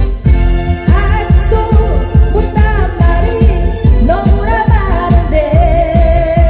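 A woman singing a Korean song live into a microphone over a backing track with a steady drum beat, amplified through a stage sound system.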